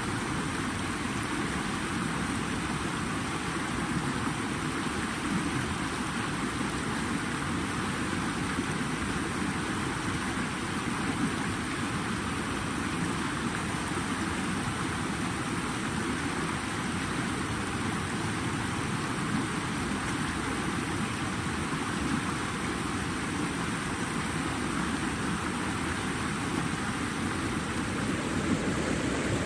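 Flowing water rushing steadily, an even hiss and rumble with no breaks.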